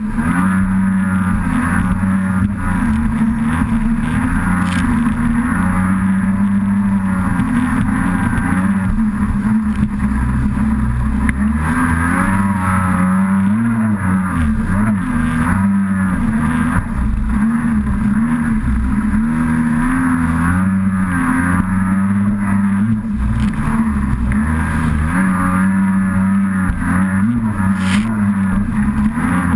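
Kawasaki SXR800 stand-up jet ski's two-stroke twin engine running hard, its pitch rising and falling again and again with the throttle, heard from on board with water rushing and spraying.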